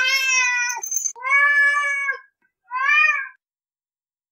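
Domestic cat meowing three times: two long, even meows and then a short one.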